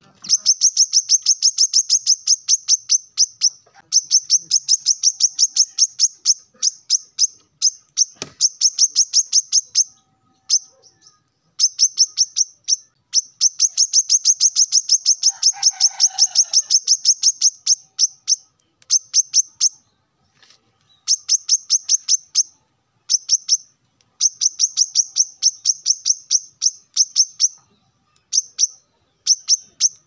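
Male brown-throated sunbird singing: long runs of fast, high, sharp chips, about eight a second, broken by short pauses. This is the male's song calling out to rivals.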